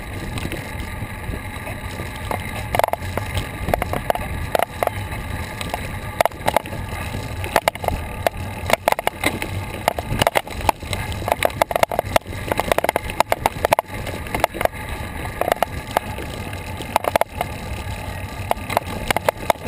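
Bicycle riding along a paved path: a steady rumble of wind on the action camera's microphone and rolling tyres, with frequent small rattles and knocks.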